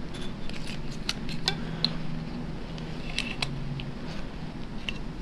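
Light, irregular clicks and ticks of a mending loom's wire hooks and frame being handled and worked loose from the threads, over a low steady hum.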